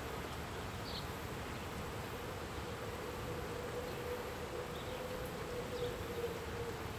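Faint outdoor ambience with a faint insect buzz: a thin steady hum that comes up about two seconds in and fades near the end, over a soft hiss. A few faint short high chirps are scattered through it.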